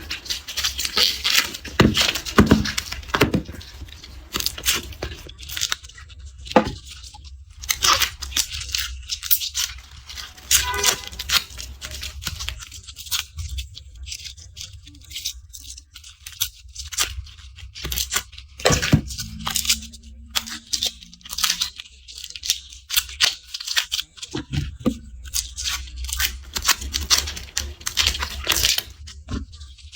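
Dry, papery garlic skins being peeled and torn by hand: crisp crackling and tearing in quick clusters with short pauses between.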